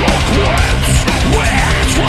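Heavy metal recording pitch-shifted down to Drop C tuning: loud, dense distorted guitars over drums with a heavy low end.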